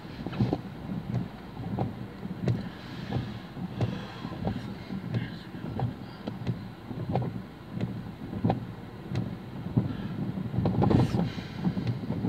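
Heavy rain beating on a car's roof and windscreen, heard from inside the stopped car: a dense rush with many irregular sharp drop hits.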